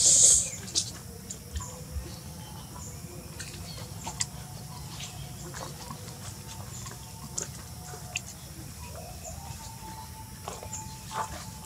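A baby macaque gives a brief high-pitched squeal right at the start. Scattered small clicks and rustles of leaves and stone follow, with a few faint chirps later, over a steady low outdoor background.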